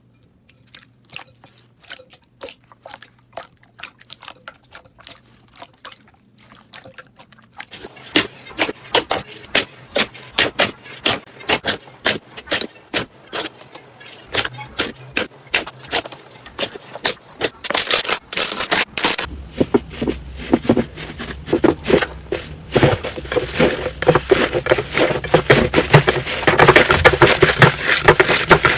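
Slime being pressed and worked by hand, giving many sharp crackling pops. The pops start sparse and soft, grow denser and louder about a third of the way in, and become an almost continuous crackle that is loudest near the end.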